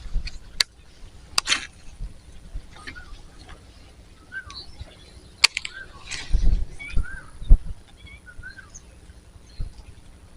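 Small birds chirping in short, scattered calls, with a few sharp clicks and a couple of dull thumps, the loudest one about three quarters of the way in.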